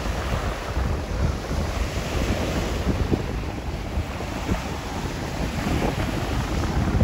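Gusty wind blowing across the microphone as an uneven low rumble, over the wash of choppy waves.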